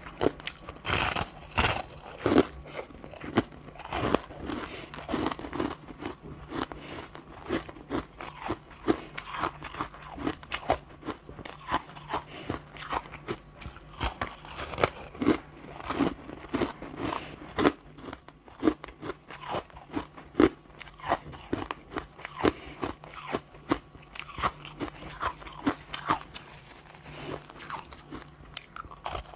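Chunks of frozen pink crushed ice being bitten and chewed, with dense, irregular crunching and crackling, several crunches a second.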